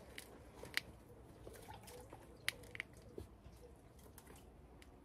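Puppies nosing and digging in a planter of potting soil: faint soft rustling with a few short, sharp little clicks.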